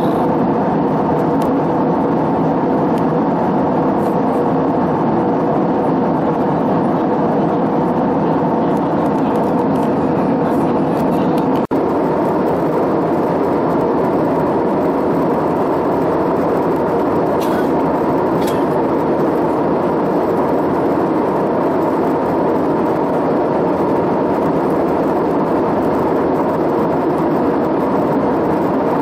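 Steady cabin noise of an airliner in flight: an even hum of the engines and rushing air through the fuselage, with one very short dip about twelve seconds in.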